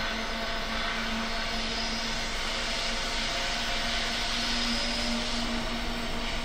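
Two Aurizon diesel-electric locomotives, 5045 and 5023, running light towards the microphone, their engines giving a steady hum over an even wash of noise.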